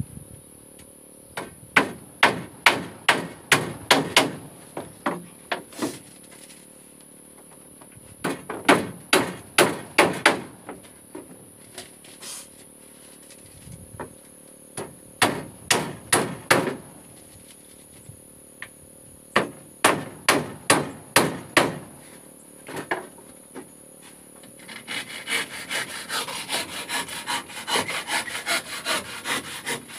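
Steel hammer driving nails into wooden floor planks, in four bursts of quick blows with single knocks between. From about 25 s in, a handsaw cuts through a plank with steady back-and-forth strokes.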